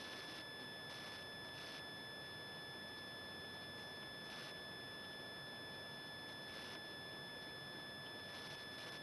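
Faint, steady, high-pitched electronic whine over a low hiss, the recording electronics' own noise, with no other sound standing out.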